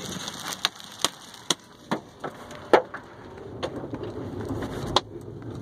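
Large hailstones striking a car's body and glass, heard from inside the car: irregular sharp knocks about two a second over a steady hiss of falling hail.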